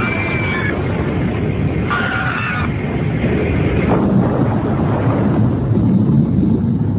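Loud, continuous low rumbling roar of an airliner in violent trouble, with passengers' high wavering screams over it in the first few seconds and a single knock about four seconds in.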